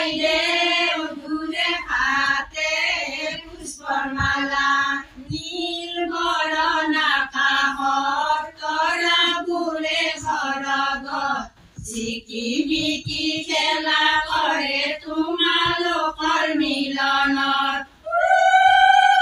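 Women singing an Assamese biya naam (traditional wedding song) together, unaccompanied, in phrases broken by short pauses. Near the end a higher, louder held call begins.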